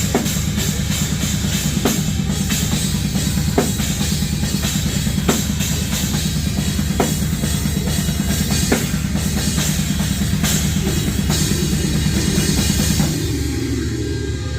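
Drum kit played live in a heavy metal band, picked up close on the drum-cam mic: a fast, dense double-kick bass-drum pattern under crash-cymbal hits that come roughly every 1.7 seconds. The drumming drops away about a second before the end.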